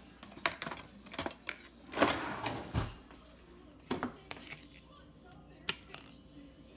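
Metal utensils clattering in a kitchen drawer: a quick run of sharp clinks and clicks, then a longer rushing slide about two seconds in, and a few single clicks later.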